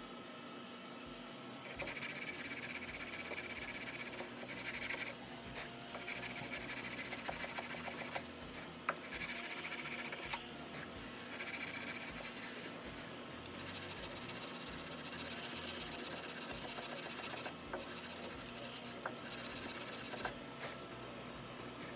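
Sandpaper wrapped over a file being rubbed back and forth along the wooden comb of a shotgun stock: hand sanding, a scratchy hiss that comes in strokes a second or two long.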